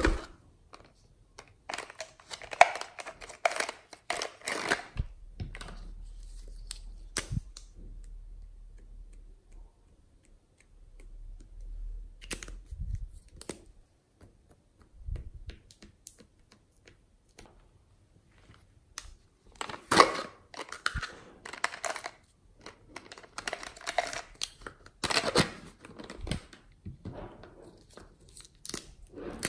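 Plastic felt-tip markers and their jar being handled: clusters of rattling and clicking a few seconds long, separated by quieter stretches.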